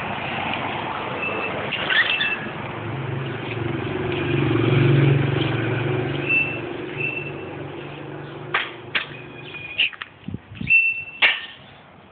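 A motor vehicle passing on the street: its engine hum swells to a peak about halfway through, then fades away. Short high bird chirps sound on and off, and a few sharp clicks come near the end.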